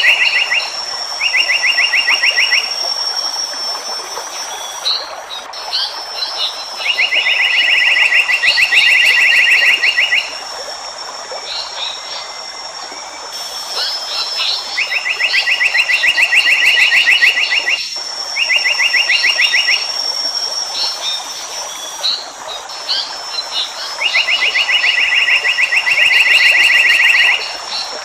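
Nature recording of animal calls: rapid, evenly pulsed trills a second or three long, repeating in the same pattern every dozen or so seconds. Short chirps and a steady high insect-like whine run over a constant hiss.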